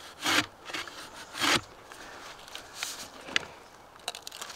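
Manual clamshell post-hole digger scraping into the dirt of a post hole: two short, loud scrapes within the first second and a half, then a few faint clicks as the blades are worked and lifted.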